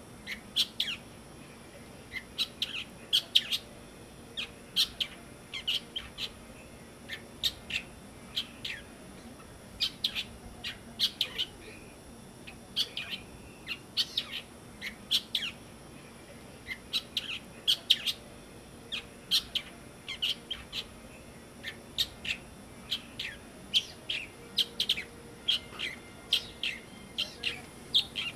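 Galapagos mockingbirds calling: short, sharp chirps, mostly in quick bunches of two or three, repeated every second or so.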